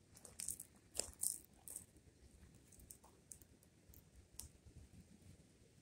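Faint crackling of a small fire: irregular sharp pops and snaps, thickest in the first couple of seconds and sparser after.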